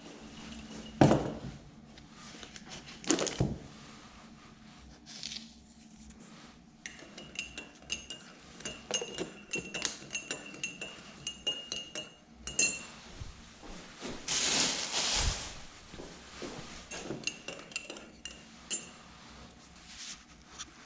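Kitchenware being handled on a stainless steel counter: a coffee mug with a metal spoon in it clinking, and plastic tubs knocking. Two sharp knocks come in the first few seconds, then a long run of lighter clinks and taps, with a rustling burst just past the middle.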